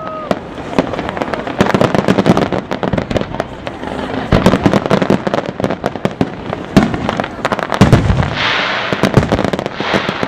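Fireworks display: a dense run of bangs and pops from bursting aerial shells, with a loud patch of hissing crackle about eight seconds in.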